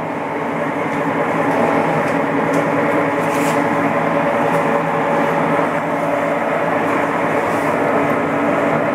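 Cincinnati No. 2 vertical knee mill's power feed running, its motor and feed gearbox driving the table with a steady hum made of several tones.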